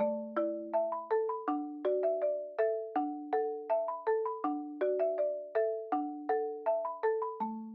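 Background music: a light melody of struck, ringing notes like a marimba, about three notes a second in a looping pattern.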